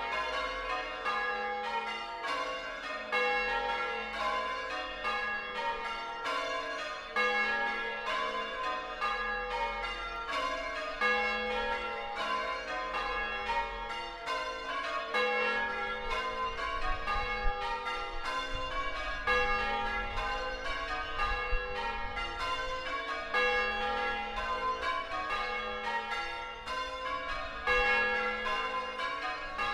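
Change ringing on a ring of six church bells in A-flat, the heaviest about 8 cwt. The bells strike one after another in a steady, unbroken rhythm, each note ringing on under the next.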